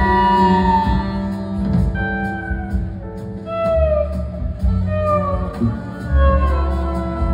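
Live blues-rock band playing: an electric slide guitar lead of gliding, falling notes over held keyboard chords and deep bass notes.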